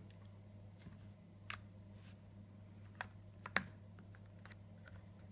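A handful of small clicks and taps from hands handling a Polaroid Socialmatic camera and its charging cable plug, the sharpest about three and a half seconds in, over a low steady hum.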